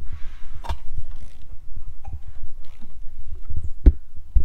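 Irregular clicks and knocks as a Dodge SRT-4 2.4-litre four-cylinder is turned over by hand with a 19 mm socket on the crankshaft bolt, driving the newly fitted timing belt and cam sprockets round. There is a sharp click about two-thirds of a second in and a louder knock near the end.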